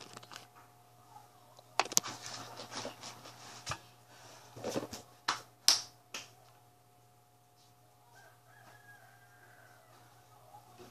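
Clicks, knocks and rustling close to the microphone, a cluster of them from about two seconds in lasting about four seconds, over a faint steady low hum.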